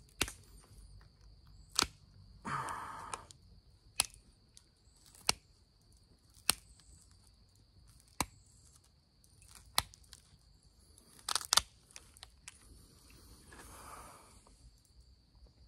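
Flint knapping: sharp, separate clicks of a percussor striking the edge of a chert spear point by direct percussion, about one every second or two, with a loud double strike near the end. A couple of softer rasping sounds fall between the strikes.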